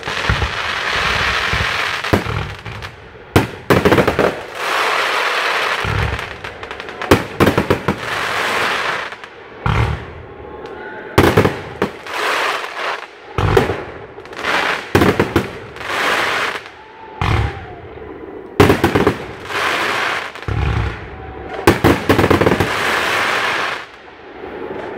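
Aerial fireworks shells bursting overhead: about a dozen sharp bangs in quick succession, each followed by a second or two of crackling hiss as the glittering stars burn out.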